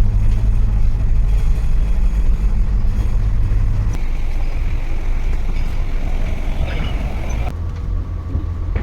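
A houseboat's engine running with a steady low drone. The drone changes abruptly about seven and a half seconds in.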